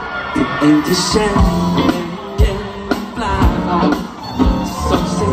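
Live pop-rock song: a man sings into a handheld microphone over a band with guitar and a steady drum beat, heard through the stage PA.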